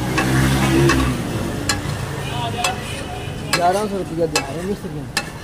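Metal spatula scraping and clinking on a large flat iron griddle (tawa) as meat in gravy sizzles and is stirred, with sharp clinks about once a second. A low engine hum passes in the first second, and a voice is heard faintly a little past the middle.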